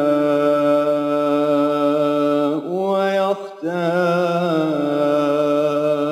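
Man reciting the Qur'an in a melodic, chanted style, drawing out a long sustained note. About halfway through the pitch glides and breaks off briefly for a breath, then the held note resumes steadily.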